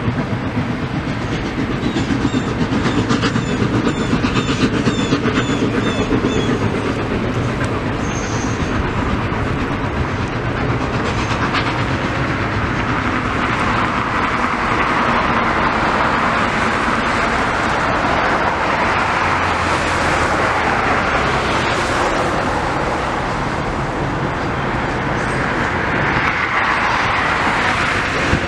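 Steam-hauled passenger train, Milwaukee Road 261's excursion, rolling over a highway overpass: steady wheel-on-rail noise with a clickety-clack as the passenger cars pass.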